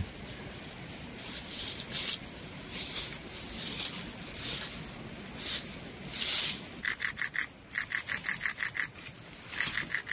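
Footsteps crunching through dry fallen leaves, a step about every second, then a quicker run of short, crisp rustles and crackles in the leaf litter near the end.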